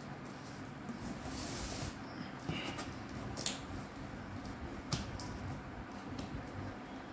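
A blade slicing through packing tape along a cardboard carton's seam: a scratchy hiss about a second and a half in, then a few sharp clicks and knocks against the cardboard, over a steady low hum.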